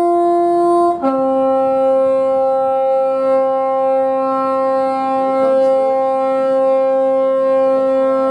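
Train air horn sounding two tones: a high note, then about a second in a lower note held steady for about seven seconds, stopping just before the end.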